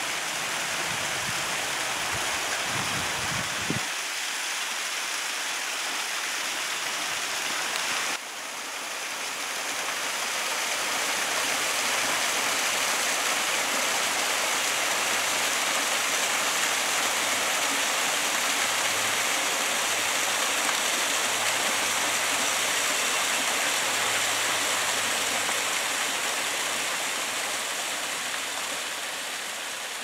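Small mountain waterfall splashing down a rock face: a steady rush of falling water. It dips abruptly about eight seconds in, then swells back and holds steady.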